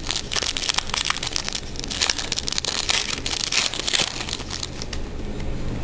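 Crinkling and rustling of trading-card packs and cards being handled, with many small crackles, stopping about four and a half seconds in.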